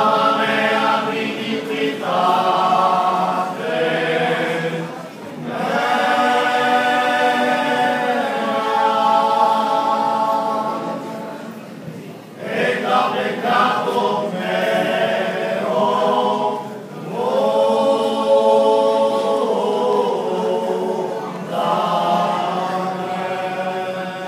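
Small male vocal ensemble singing unaccompanied close-harmony chant. The held chords come in phrases of a few seconds each, with short breaks for breath between them.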